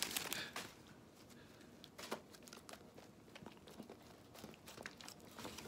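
Faint, scattered mouth clicks and smacks of a dog chewing and licking its lips over hamburger, with soft crinkling of the hamburger's paper wrapper.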